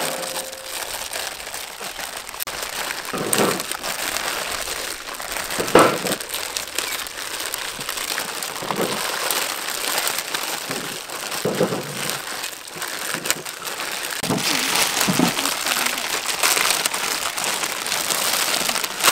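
Plastic instant-noodle packets crinkling and rustling continuously as several people open them and pull out the noodle blocks and seasoning sachets, with louder crackling handfuls every few seconds.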